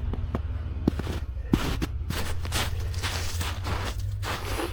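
Footsteps in snow, a few irregular steps, over a steady low rumble.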